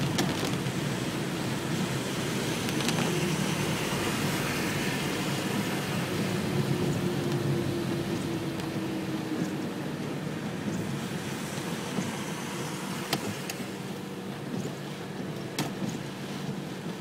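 Heard from inside a car driving in heavy rain: a steady wash of rain and wet-road noise with the car's engine running underneath. A few sharp taps come near the end.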